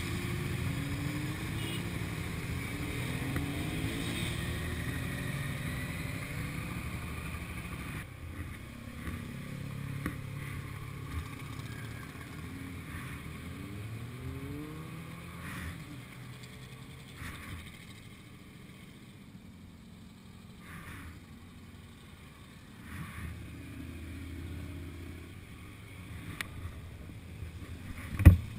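Motorcycles riding in a group, engines running and changing pitch again and again as they accelerate and shift through the roundabout, over a steady rush of wind on the helmet microphone. A single sharp knock near the end.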